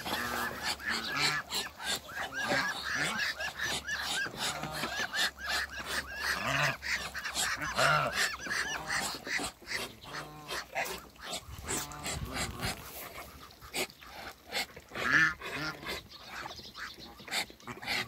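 Domestic geese honking with ducks calling: a steady run of short, repeated calls, over scattered clicks.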